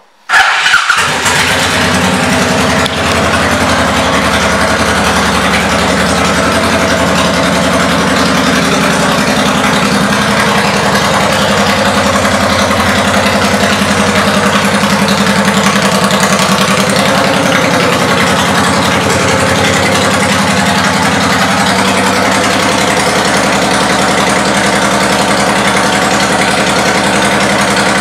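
Honda VTX 1800R's 1,800 cc V-twin starting within the first second, then idling steadily through aftermarket exhaust pipes.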